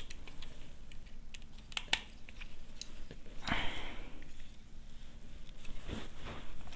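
Small clicks and scrapes of wire and a screwdriver on the brass terminals of a plastic switch board as it is handled and wired, with a short scraping rustle about three and a half seconds in.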